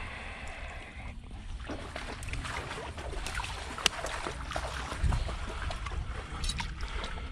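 Water sloshing and splashing in a flooded creek channel, with scattered small clicks and rustles and a brief low rumble about five seconds in.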